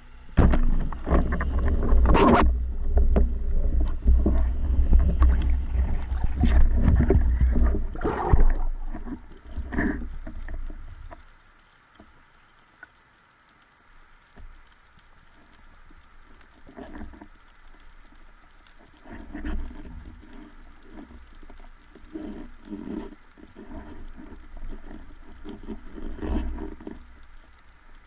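Muffled underwater sound through a camera housing: a sharp snap about two seconds in, the speargun firing, then several seconds of loud water churning and deep rumble as the speared grey mullet struggles. It dies away around eleven seconds in, followed by softer irregular bumps and sloshing while the fish is handled on the shaft.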